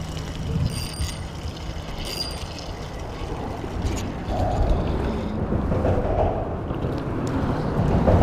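Steady low wind rumble on the microphone, with a few light clicks in the first couple of seconds as a spinning reel is handled and reeled.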